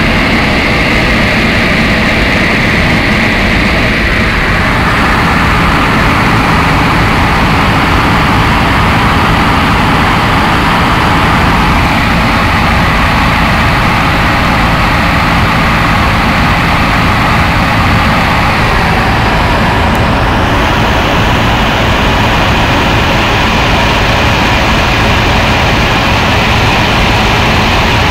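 Steady cabin noise inside a Cessna 152 in a descent: its four-cylinder Lycoming engine and propeller hum under loud wind rush. The character of the noise shifts slightly about four seconds in and again about twenty seconds in.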